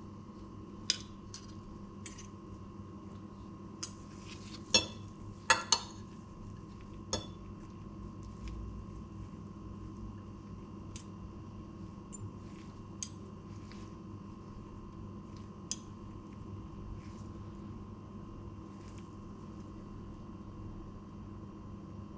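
Metal fork and spoon clinking and scraping against a ceramic plate: scattered sharp clicks, most of them in the first seven seconds and a few spaced out after, over a steady low hum.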